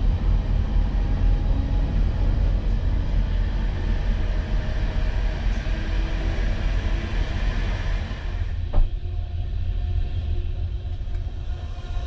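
Rumble of the ÖBB Nightjet sleeping train rolling out of a station, heard from inside the car, with a steady hiss above the low rumble. A single sharp knock comes about nine seconds in, after which the hiss eases.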